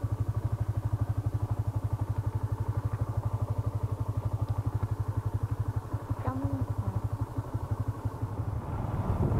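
Yamaha Exciter 150's single-cylinder four-stroke engine idling with a steady, even exhaust pulse. It picks up and grows louder near the end as the throttle opens.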